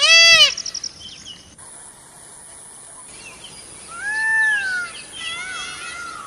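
Indian peafowl (peacock) calling: a loud, short, arched call right at the start and a longer one about four seconds in, with smaller birds chirping around them.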